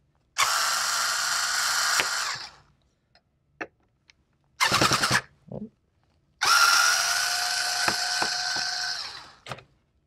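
Cordless electric screwdriver running in reverse, backing out the spring-loaded screws of a server CPU heatsink. It runs twice with a steady whine, each run lasting about two seconds, with a short burst between.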